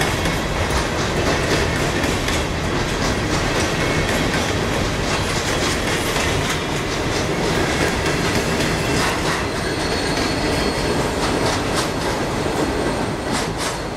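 Freight cars of a CSX coal train rolling past, steel wheels clattering steadily over rail joints, with a faint high wheel squeal about ten seconds in.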